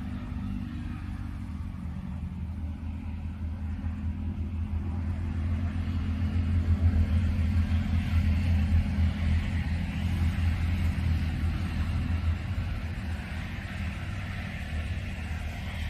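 A low, steady rumble with a deep hum, growing louder for several seconds in the middle.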